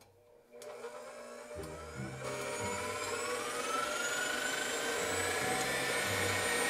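KitchenAid stand mixer motor whirring as its whisk whips milk and meringue powder into foam. It starts about half a second in, gets louder around two seconds in, and its whine then rises slowly in pitch.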